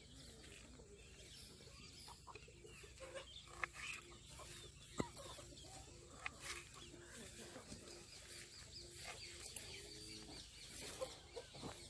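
Faint clucking of a hen, short notes evenly repeated through the middle of the stretch, with a few sharp clicks of a knife meeting the board as a citrus fruit is sliced.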